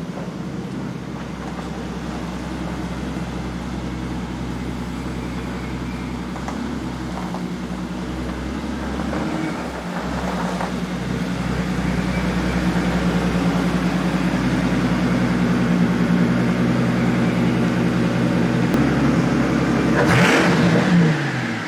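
A car engine running at low speed while it is manoeuvred, growing louder about halfway through. Near the end there is a brief louder surge whose pitch falls away.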